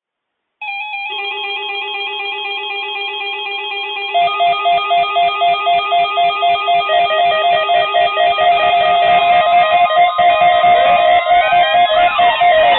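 Electronic music: a fast trilling melody of buzzy tones, joined about four seconds in by a pulsing beat, with sweeping tones near the end.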